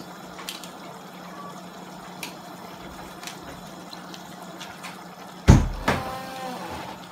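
Paella sauce simmering in a wide pan, with scattered small pops, under a steady low hum. About five and a half seconds in, a utensil knocks loudly against the pan, followed by a brief ringing.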